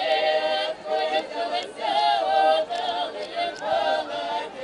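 Small folk ensemble singing a cappella in chorus, several voices together in sung phrases with short breaths between them.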